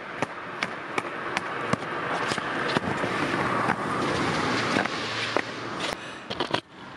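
Skateboard wheels rolling on wet asphalt: a hiss that swells as the board comes close, with sharp clicks at first about every 0.4 s and then more scattered. A quick cluster of clacks comes just before the rolling cuts off abruptly near the end.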